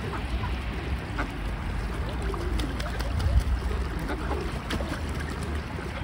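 Water splashing and lapping as a flock of gulls, mallards and mute swans bathe and paddle on open water, with a low rumble of wind on the microphone.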